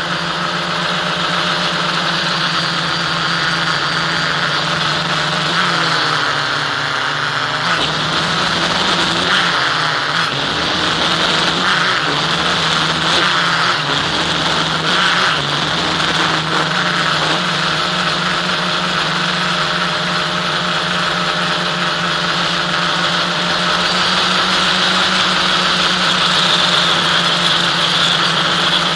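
Electric motors and propellers of an FPV aircraft running continuously, picked up by the onboard camera with airflow hiss. The pitch shifts up and down between about 6 and 17 seconds in, then holds steady.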